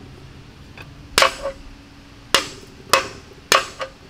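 Hammer blows on steel: four hard strikes a little over half a second to a second apart, each with a short metallic ring, and lighter taps between them. This is metal-on-metal hammering while a ball bearing is driven off a splined shaft in a differential housing.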